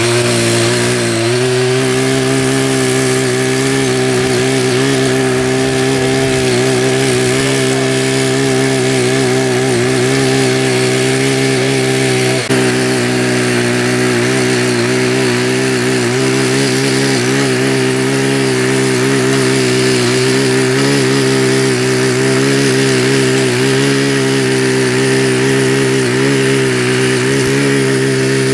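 Ching Yee CY50 mini power tiller's 48.6 cc engine running at high speed as its rotary tilling blades loosen hard soil. The engine rises in pitch about a second in, then holds steady with slight wavering under load and one brief dip near the middle.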